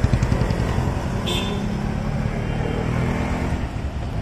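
Road traffic: a motor vehicle's engine running close by amid a steady street rumble, with a brief higher sound about a second in.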